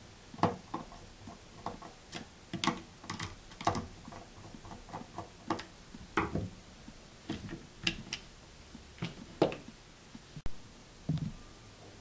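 Screwdriver working the small screws out of a Condor MDR3 pressure switch: irregular light metallic clicks and taps with a few duller knocks as the switch's plastic and metal housing is handled.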